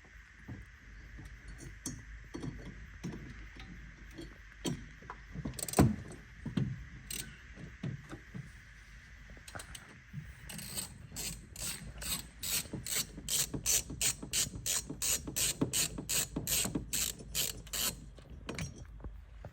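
Ratcheting hand driver clicking as the small Torx screws holding the headlight's DRL board are backed out. Scattered clicks and knocks at first, then about halfway through a fast, even run of ratchet clicks, about four a second, that stops shortly before the end.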